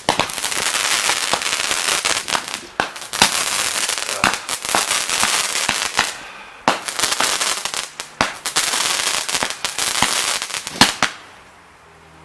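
Consumer fireworks going off on the ground: a dense hissing crackle full of sharp pops and cracks, in several runs with short breaks, stopping about eleven seconds in.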